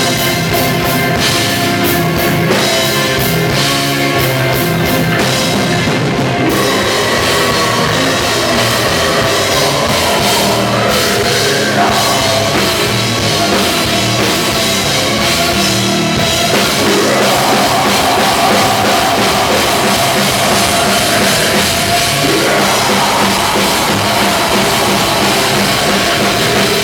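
Live symphonic death/black metal band playing: distorted electric guitars, keyboards and a drum kit, loud and continuous. A man's harsh growled vocal comes in near the end.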